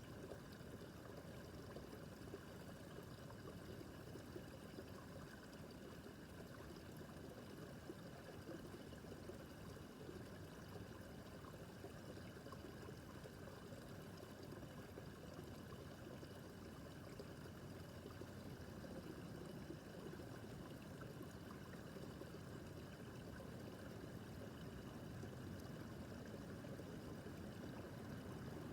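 A small brook babbling and trickling over stones, steady throughout.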